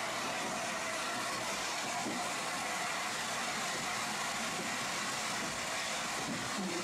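A train making a steady hiss with faint steady tones, even throughout with no distinct beats or knocks.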